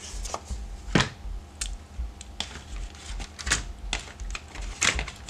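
Plastic miniature sprue and kit parts being handled: irregular light clicks and rattles of hard plastic, the loudest about a second in.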